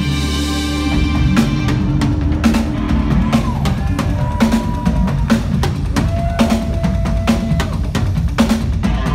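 Progressive metal band playing live and loud; about a second in, the Tama double-bass drum kit comes in with fast, dense bass drum, snare and cymbal hits over a low bass and keyboard drone.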